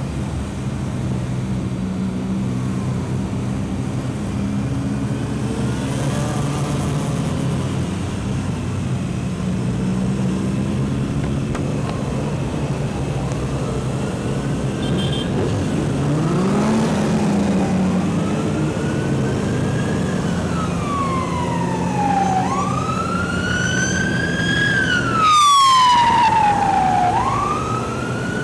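Motorcycle engines running in a slow group ride, the nearest a 1997 Honda CBR600F's inline-four. Over the last several seconds an emergency-vehicle siren wails, rising and falling in pitch, and is loudest a few seconds before the end.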